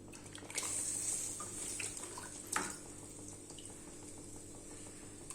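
Water running and splashing in the kitchen, strongest for the first few seconds, with a few light clicks and one sharper knock about two and a half seconds in.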